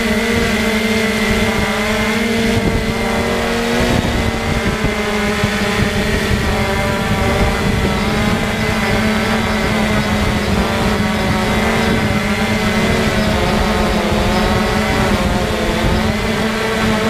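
Multirotor drone's electric motors and propellers whining steadily, heard close up through the drone's own onboard camera, the pitch wavering slightly as it manoeuvres.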